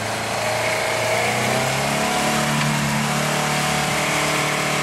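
Off-road truck's engine revving hard under load as it churns through swamp mud, the pitch climbing over the first couple of seconds and then held high. Its wheels spin in the mud with only the front-wheel drive working.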